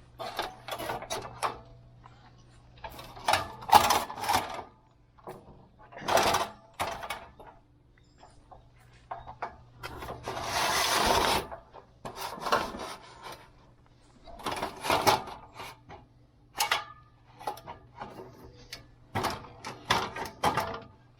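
Irregular scraping, rustling and clattering, with a longer scraping hiss about ten seconds in.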